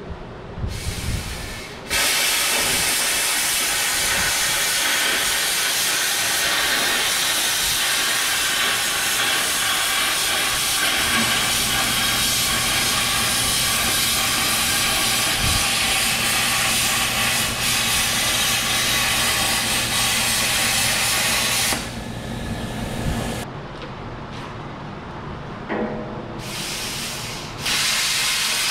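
Oxy-fuel cutting torch blowing its oxygen jet through the steel of a loader bucket: a loud steady hiss that starts suddenly about two seconds in, stops about twenty-two seconds in, and starts again near the end.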